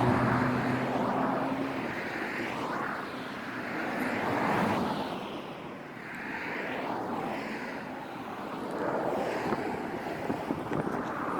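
Harbour ambience: water washing and wind noise swelling and easing every two to three seconds. A low droning hum at the start stops about two seconds in.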